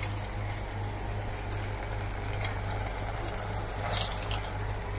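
Urad dal vada batter deep-frying in hot oil in a kadhai: steady sizzling and bubbling, with a brief louder crackle about four seconds in.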